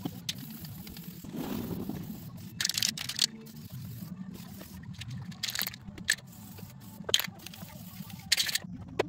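Aerosol spray-paint can spraying in several short hissing bursts, a second or less each, over a steady low hum.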